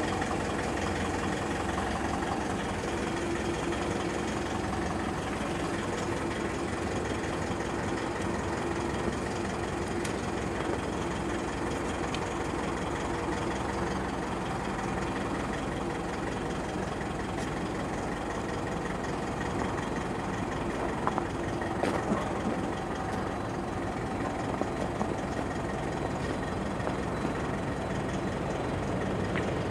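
Truck engine running steadily to drive the hydraulics of a Karba 14-metre truck-mounted folding aerial platform as its boom raises the basket. A couple of light knocks come about two-thirds of the way through.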